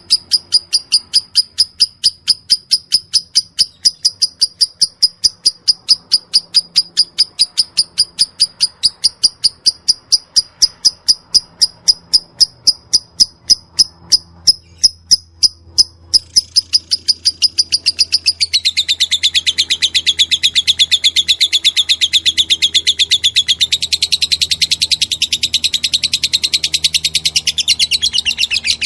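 Lovebird singing in the 'ngetik' (typing) style, the long non-stop 'konslet' form: an unbroken string of sharp, evenly repeated high chirps, several a second, which about 17 seconds in speeds up into a dense, continuous rattling chatter.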